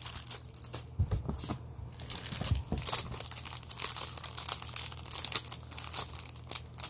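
Plastic packaging crinkling and rustling as it is handled and pulled open, with a couple of dull bumps about one and two and a half seconds in.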